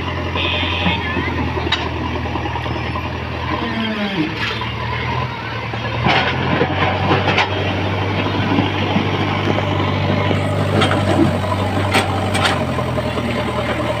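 JCB backhoe loader's diesel engine running, growing louder about six seconds in as the front bucket pushes into rubble. Several sharp knocks of stones against the steel bucket come over the engine.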